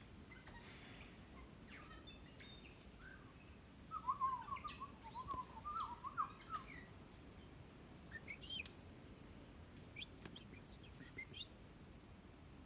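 A bird calling: a quick run of warbling notes from about four to seven seconds in, then a few short rising chirps.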